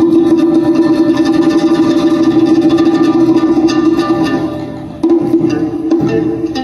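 Vietnamese traditional folk music led by plucked string instruments, with one long held note under the plucking. It dips in loudness about four seconds in and comes back strongly about a second later.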